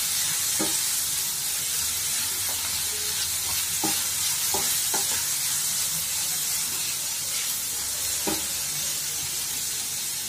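Chopped tomato, onion, grated carrot and peas sizzling in a frying pan on low flame as a spatula stirs them: a steady frying hiss with a few light knocks of the spatula against the pan.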